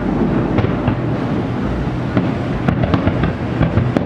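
Fireworks exploding: a continuous rumble of booms with many sharp crackling pops, echoing off surrounding buildings.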